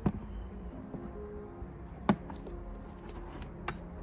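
Quiet background music with a few sharp clicks and knocks from a teaspoon and the plastic lid of a powder tub being handled, the loudest click about two seconds in.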